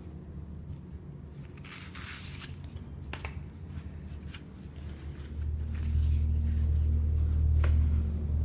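Packaging being handled: a short rustle and a few sharp clicks over a low hum. About halfway through, a loud deep rumble swells up and takes over.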